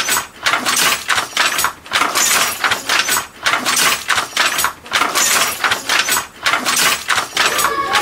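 Rhythmic clacking and rattling of a handloom at work, a surge of clatter roughly every one and a half seconds.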